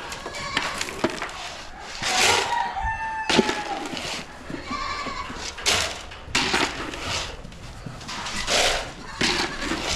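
A rooster crowing once, about two seconds in, a drawn-out call that falls slightly in pitch. Short scattered rustles and knocks come from the barnyard around it.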